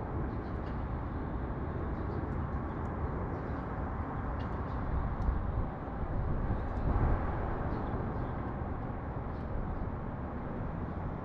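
Steady low rumble of city traffic, swelling briefly about seven seconds in, with faint short bird chirps scattered through it.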